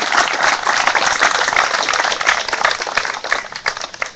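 A crowd applauding, a dense patter of many hands clapping that dies away near the end.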